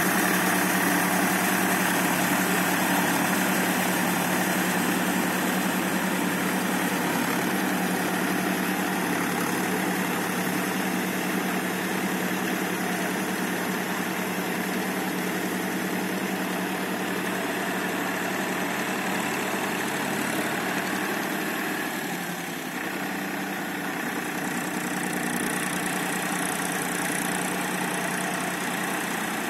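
Powertrac tractor's diesel engine running steadily as it drives a rotavator through waterlogged mud, dipping briefly in level about three-quarters of the way through.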